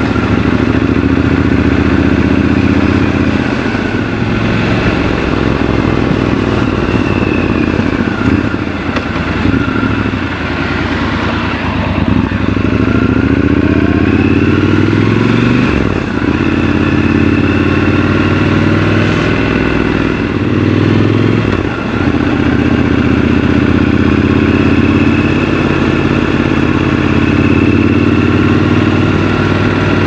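Triumph Scrambler 1200 XC's 1200 cc parallel-twin engine running under way, recorded raw from the bike. The engine note rises in pitch under acceleration a little before the middle, with two brief dips in level past the middle.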